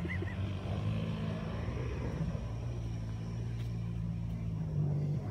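Off-road vehicle engine running steadily at low revs, picking up briefly near the end.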